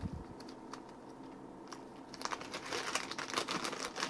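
Packaging crinkling as a new bushing is unwrapped. A few light ticks come first, then dense rustling starts a little after two seconds in and keeps going.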